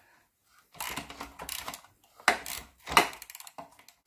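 Hand tools working the corroded trunnion nut on a rusty classic Mini rear subframe. A burst of scraping and clicking comes about a second in, followed by two sharp knocks.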